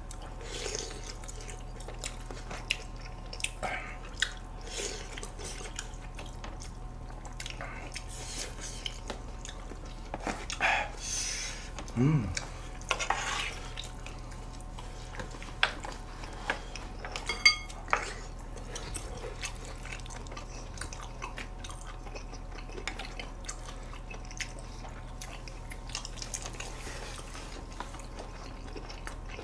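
People eating spicy stir-fried food: wet chewing and smacking, with scattered clicks of chopsticks and a spoon against a metal griddle pan and plastic containers, over a faint steady hum.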